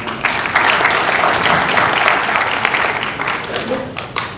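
Audience applauding, swelling about half a second in and dying away near the end.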